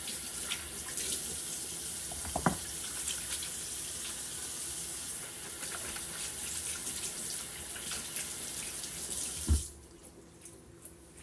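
Kitchen tap running while hands are washed under the stream, with a couple of knocks. The water is shut off near the end.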